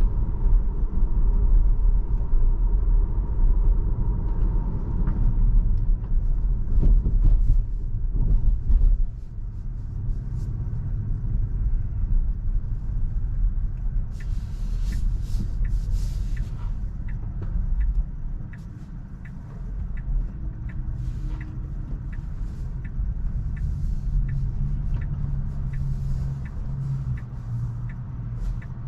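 Tesla cabin road noise: a steady low tyre-and-road rumble while driving, heavier for the first nine seconds or so. From about halfway, an even ticking about one and a half times a second, like a turn-signal indicator.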